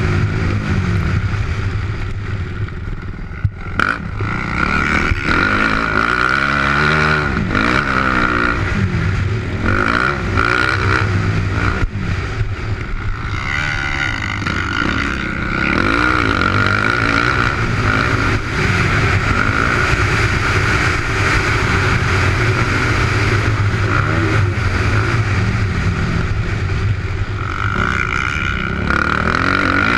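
2008 Yamaha YZ450F's four-stroke single-cylinder engine, heard from the rider's helmet camera, revving up and down again and again as the bike accelerates, shifts and backs off around the track, with wind noise over the microphone.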